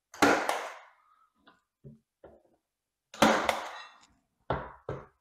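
Cordless Milwaukee pin nailer firing pins into trim molding: two loud sharp shots about three seconds apart, each trailing off over about half a second. Lighter clicks and knocks of the tool being handled and repositioned fall between and after them.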